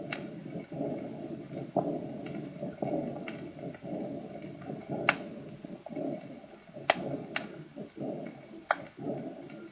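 Heart sounds heard through a stethoscope: a rough murmur filling almost each whole heartbeat, with only brief dips about once a second, and a few sharp clicks scattered through it.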